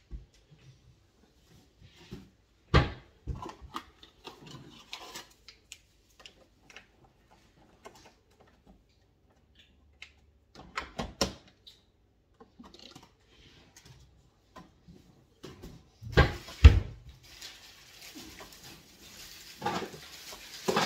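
Kitchen clatter as pots, dishes and utensils are handled and set down: scattered knocks and clinks, the loudest clunks about 3, 11 and 16 seconds in, with a soft rushing noise near the end.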